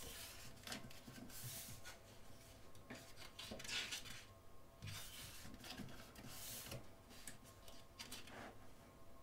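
Thick pages of a photo program book being turned: about six soft paper rustles and slides with light flicks, the loudest a little over a third of the way in.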